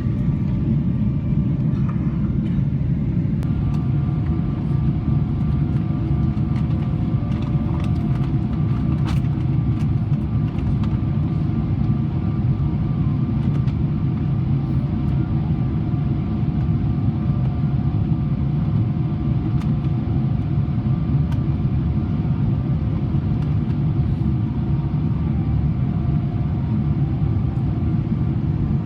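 Steady cabin rumble of a Boeing 777-300ER in flight, the airflow and its GE90 engines heard from inside the cabin. A faint steady whine joins in about three and a half seconds in.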